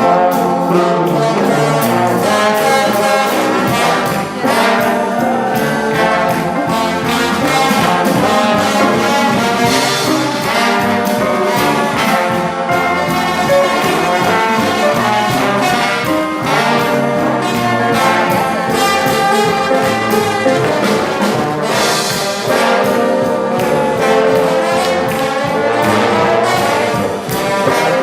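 Brass ensemble led by trombones, with trumpets, playing a fast, busy passage at full volume without a break.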